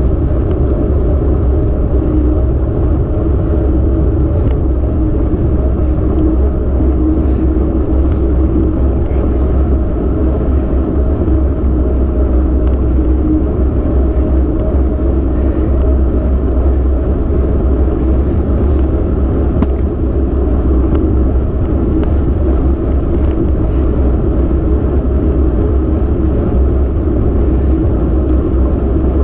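Steady wind buffeting and road rumble on the microphone of a camera moving along a wet asphalt road, a deep, even rumble that does not change.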